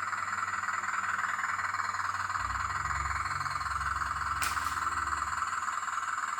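Steady high buzzing whine from a 1/14-scale RC hydraulic excavator's pump running, with a low rumble swelling in the middle as it takes load and a single sharp click about four and a half seconds in.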